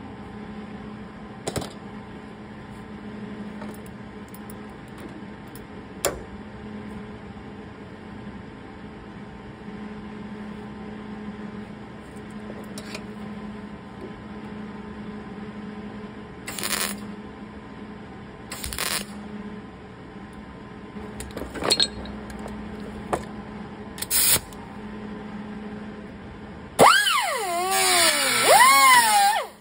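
Scattered clinks of hand tools and a few short bursts of a power tool against sheet metal, over a steady low hum. Near the end a handheld power tool starts up on the bus's sheet-steel quarter panel, loud, its whine wavering up and down in pitch.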